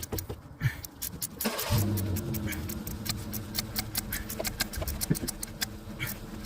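Ratchet wrench clicking in quick, regular strokes as the bolts of a turbo oil return pipe are tightened. A steady low engine-like hum sets in about a second and a half in and runs on beneath the clicks.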